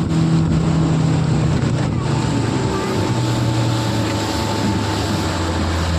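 Motorboat engine running steadily over the rush of water and wind noise on the microphone. The engine note drops lower about halfway through, as the boat throttles back.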